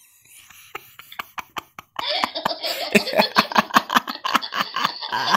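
Young girls laughing in rapid, breathy, pulsed fits, played back through a screen's speaker. The laughter is faint and scattered at first and turns loud and continuous about two seconds in.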